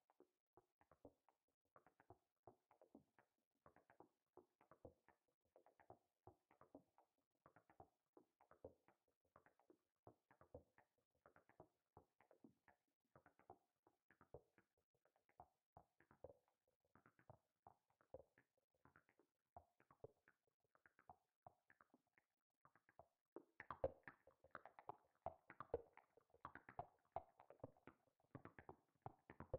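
Faint, dense string of short, clicky percussive synth hits from Native Instruments' Reaktor PRISM modal synth in an uneven groove. The hits get louder and brighter near the end.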